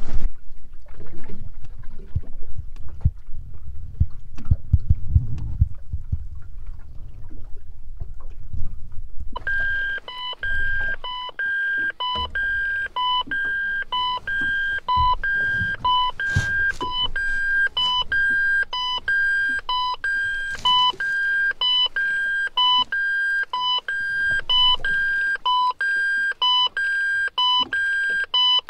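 Low wind and boat rumble on the microphone. About nine seconds in, an electronic alarm starts beeping, a high two-note beep repeating steadily about twice a second.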